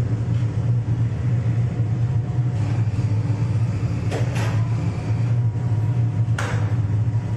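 Industrial machine running with a steady low hum, with sharp knocks about four and six and a half seconds in and a fainter one before them.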